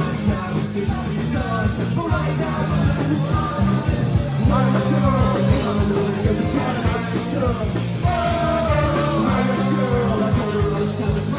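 Live rock band with horns, electric guitar, bass and drums playing loudly, with a singer's voice over the band.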